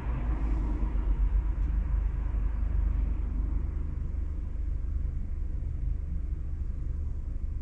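Car driving along a street: a steady low rumble of engine and tyres, with more road noise in the first few seconds that eases off.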